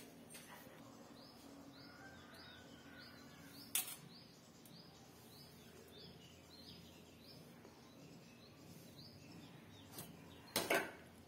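A bird chirping over and over in a quick series of short high chirps, about two or three a second. Sharp knocks cut in, one about four seconds in and a louder double knock near the end.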